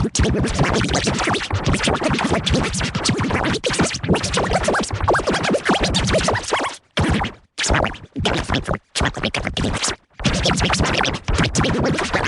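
Glitchy, scratch-like electronic audio effect: dense rapid stuttering chops, with several brief cut-outs to silence in the second half.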